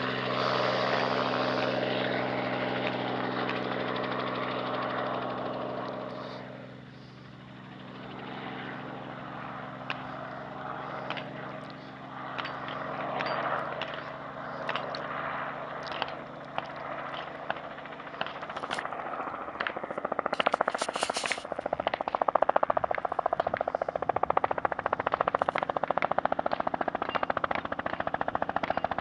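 Helicopter running steadily, with scattered sharp cracks partway through; about twenty seconds in, a machine gun opens up in rapid full-auto fire that goes on to the end.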